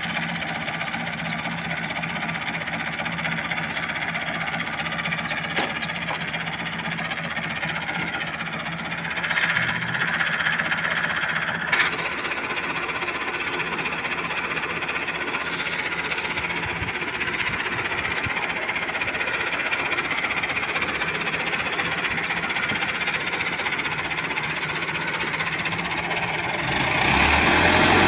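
Massey Ferguson 385 tractor's four-cylinder diesel engine running steadily at low revs while the tractor moves its loaded trolley. The revs rise briefly about nine seconds in and again near the end, with a single sharp click just before twelve seconds.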